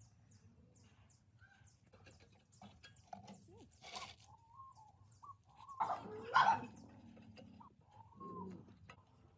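Birds calling in the background: short high chirps and clucking calls. A few sharp knocks come through, and the loudest, noisier burst arrives about six seconds in.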